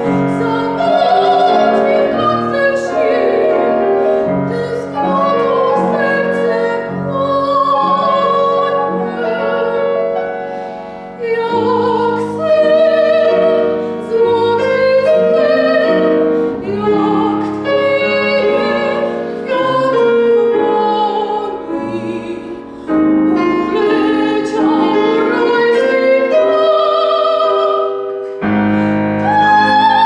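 Classical soprano singing an art song in full operatic voice, with vibrato on held notes, accompanied by a Petrof grand piano. The phrases pause briefly twice, about 11 and 23 seconds in.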